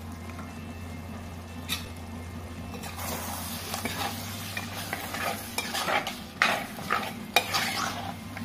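A spoon stirring a thick chicken curry with cream in a heavy black pot. From about three seconds in it scrapes through the curry and knocks against the pot's side several times, over a faint sizzle.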